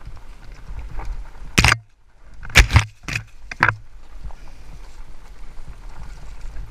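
Haibike Sduro FullFat Six fat-tyre electric mountain bike rolling down a rough dirt singletrack: a steady rumble of tyres and wind on the camera mic. Several sharp knocks and rattles break in, one about a second and a half in and a quick run of them from about two and a half to nearly four seconds in.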